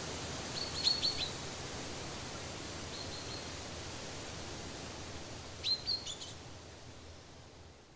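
Outdoor ambience of a steady hiss with short high bird chirps about a second in, again around three seconds, and near six seconds; it fades out near the end.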